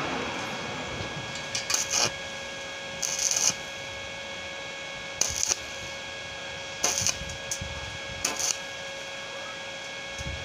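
Stick-welding arc on thin galvanized steel tubing, struck in about six short crackling bursts a second or so apart, each well under a second. This is the stop-start stitch technique used at about 80 amps to bridge a wide gap at a joint without burning a hole through the thin tube wall.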